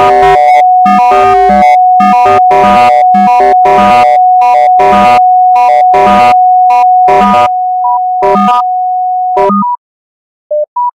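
Electronic synthesizer sounds from a Kinect-controlled Pure Data step sequencer. Short pitched notes and noisy hits step in a rhythmic pattern over a steady, held high tone. The pattern thins out and stops about a second before the end, followed by two short beeps.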